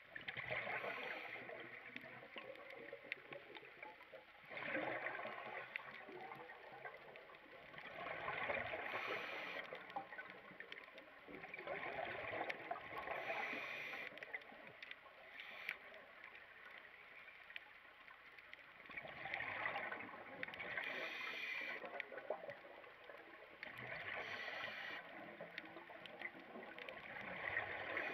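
Scuba diver breathing through a regulator underwater, heard through the camera housing: exhaled bubbles rush and gurgle in bursts every few seconds, about seven breaths, with a longer pause near the middle.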